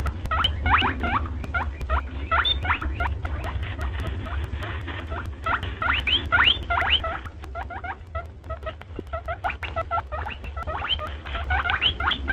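Rabbits squeaking: rapid runs of short, rising squeaks in bunches, with a few clicks, over a steady low hum.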